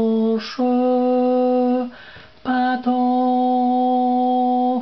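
A person's voice singing long held notes: a short note sliding down at the start, then two long steady notes with a brief pause between them.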